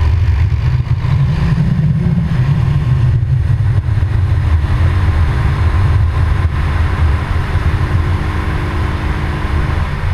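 Quad ATV engine running steadily while riding along a gravel road, under a loud, uneven low rumble of wind on the microphone.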